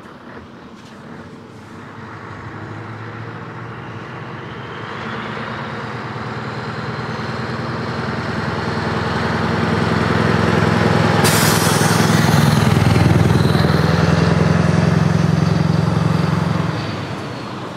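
Scania 143's V8 diesel engine pulling at low, steady revs as the truck drives up and past. The engine note grows louder to a peak and drops off sharply near the end, and a short burst of air hiss comes about eleven seconds in.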